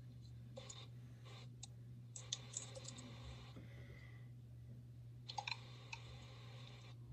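Faint light clicks and taps of small objects being handled, in three short clusters, over a steady low hum.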